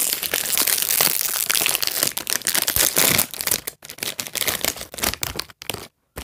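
A toy's packaging wrapper being crinkled and torn open by hand: dense, continuous crackling for the first three seconds or so, then scattered crinkles with short pauses.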